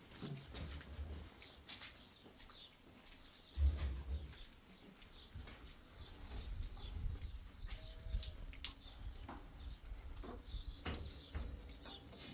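Light rain dripping in scattered ticks, with wind gusting on the microphone in low rumbles.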